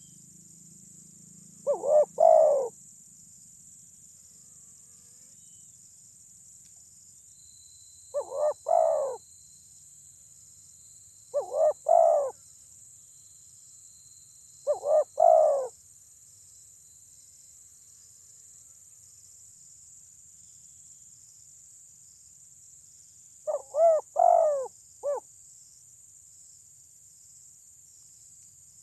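Spotted dove cooing: five short, loud phrases of a few notes each, spaced several seconds apart. A steady high insect hum runs underneath.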